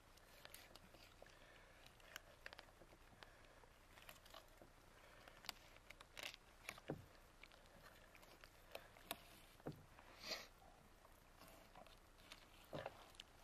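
Faint, scattered clicks and taps of a knife and hands working on fish being filleted, a dozen or so irregular small knocks over a quiet background.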